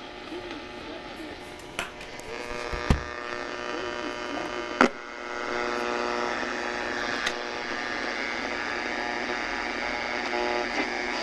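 Old six-band radio giving a buzzing hum over static, with wavering whistles in the first couple of seconds and a few sharp clicks about 2, 3 and 5 seconds in; the noise grows louder about 5 seconds in. It is the sound of the noisy radio tuned off a station.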